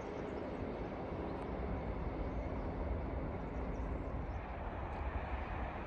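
Freight train approaching in the distance: a steady low rumble. A faint steady hum stops about four seconds in.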